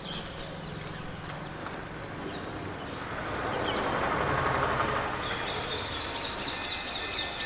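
A vehicle passing by, its noise swelling and fading over about three seconds. Birds chirp through the second half.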